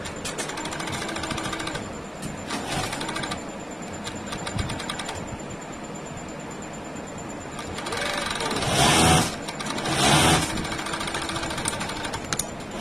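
Industrial flatlock hem machine stitching T-shirt hems in short runs of rapid needle strokes, starting and stopping every second or two, with two louder runs near the end.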